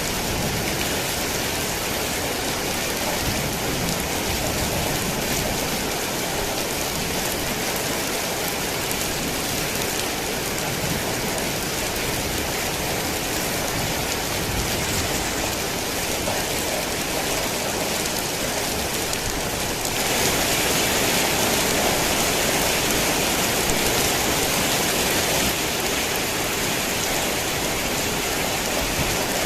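Heavy rain falling steadily, a dense even hiss with no thunder; about two-thirds of the way through it turns louder and brighter for several seconds, then eases back.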